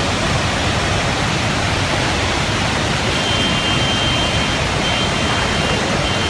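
Dam-failure outburst flood: a torrent of muddy water rushing down the valley as a steady, dense noise. A thin high tone comes and goes in the second half.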